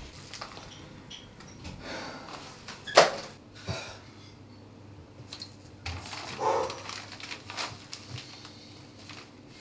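Scattered light knocks and clicks, with one sharp clack about three seconds in and a denser cluster of knocks a little after the middle.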